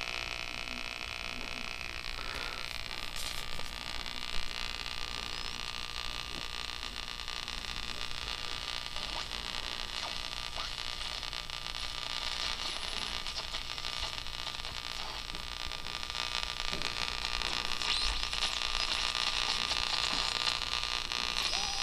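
1965 Magnavox solid-state clock radio hissing with static as its dial is tuned across the band and no station comes in. There is a click about four seconds in and a few faint whistles near the end. The poor reception is something the owner thinks could be caused by interference from CFL bulbs.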